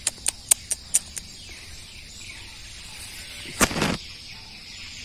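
Outdoor garden ambience: a steady faint high drone of insects, a quick run of light clicks in the first second, and one louder scuff of a step on pebbly, scratched-up soil about three and a half seconds in.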